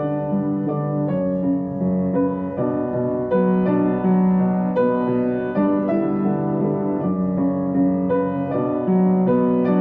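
Background piano music: a steady run of sustained notes and chords, changing every half second or so.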